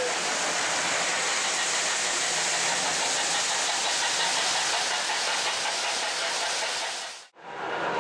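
O gauge model Chessie Steam Special passenger train running along the track, a steady hissing running noise. It fades out quickly about seven seconds in, and a new sound with steady tones starts just before the end.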